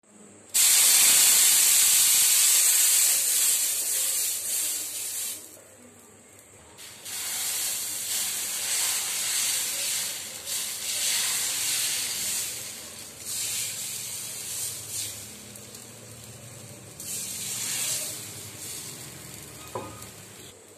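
Hot tawa hissing and sizzling. A loud hiss starts suddenly about half a second in and fades over a few seconds, then the sizzle comes back in waves as dosa batter is spread in a spiral across the griddle.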